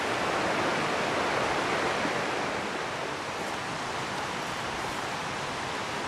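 Mountain stream rushing, a steady even hiss of running water.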